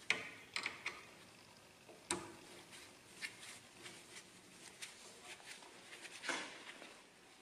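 Small metal clicks and taps as a punch-riveting die is pushed and turned into its holder on the riveter's C-frame. There is a sharp click near the start, another about two seconds in, light ticks between, and a longer scraping click a little after six seconds.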